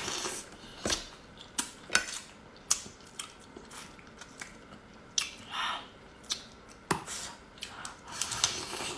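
Hard crab shell cracking and crunching as a brown crab is broken open and eaten: irregular sharp cracks and clicks, with chewing in between.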